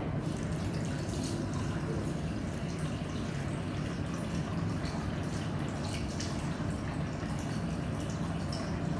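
Bathroom sink tap running, a steady stream of water splashing into the ceramic basin.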